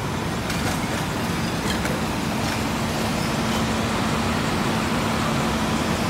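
Heavy diesel trucks (fire engines and a garbage truck) idling: a steady drone with a constant low hum.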